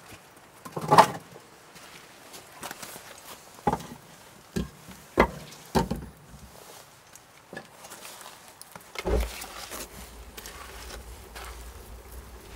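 Split firewood logs being stacked inside a domed wood-fired oven: a series of separate wooden knocks as logs are set down on each other and on the oven floor, the loudest about a second in. A heavier thump comes about nine seconds in, after which a low steady rumble continues.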